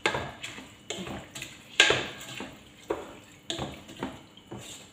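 Wooden spoon stirring rice and lentils in a pot, knocking and scraping against the pot's sides in a string of sharp, irregular knocks, about two a second.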